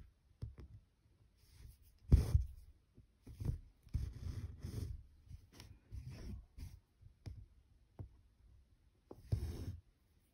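Needle and embroidery thread being drawn through 25-count Zweigart cross-stitch fabric: irregular scratchy rustles and soft taps. The loudest comes about two seconds in and another strong one near the end.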